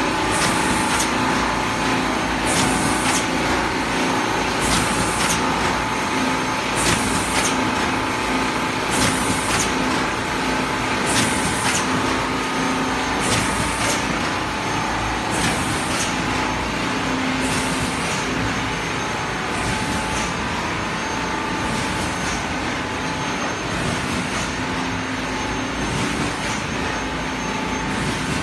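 LITAI TTF-520AF cup-lid thermoforming machine running through its cycle: a short hiss of compressed air with a clunk about every two seconds, over a steady mechanical hum. The hisses grow fainter in the second half.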